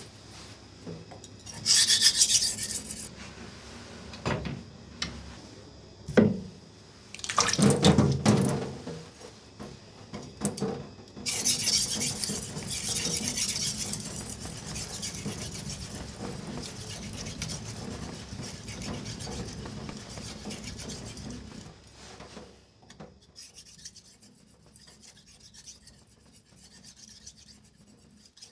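Damascus kitchen knife blade scraped back and forth across whetstones: a gritty rubbing in strokes. It is loud in bursts over the first half and fainter near the end.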